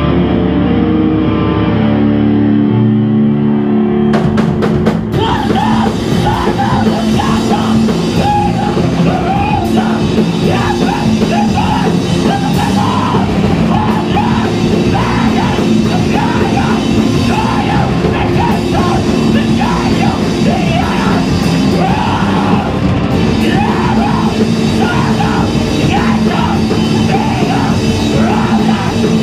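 Heavy band playing live and loud. Distorted electric guitar rings out alone at first, then the drums and full band crash in about four seconds in, with yelled vocals over them.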